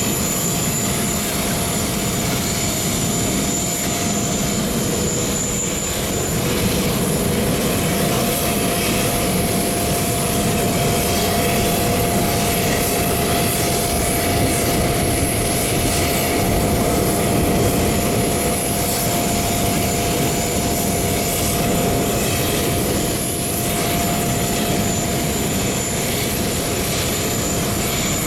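Joby electric tilt-rotor air taxi's propellers running steadily in flight, a broad whirring noise with a constant humming tone.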